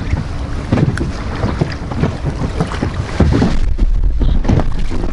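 Wind buffeting the microphone and water lapping against the hull of an inflatable boat, with scattered small knocks from handling a caught crucian carp.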